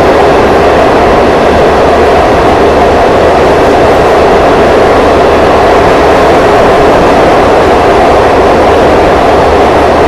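Loud, steady rumble of a passenger train running at speed, heard from on board.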